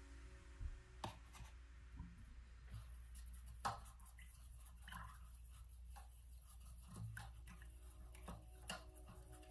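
Faint light taps, clicks and rubbing of a paintbrush being swirled in a plastic cup of rinse water, with a sharper click a little past a third of the way in.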